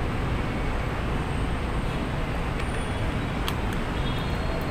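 Steady background noise, heaviest in the low end, with a few faint clicks around the middle as a small plastic action camera is handled.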